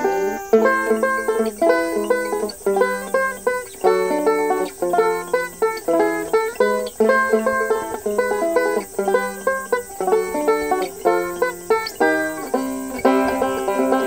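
Resonator banjo played solo, finger-picked in quick, continuous runs of notes in an improvised bluegrass-style line. Behind it there is a faint, steady, high cicada drone.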